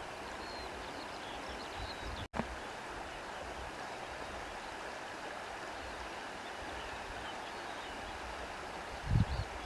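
Steady rush of running water from a small stream, with faint high chirps over it. The sound drops out for an instant a little after two seconds, and a low rumbling bump comes near the end.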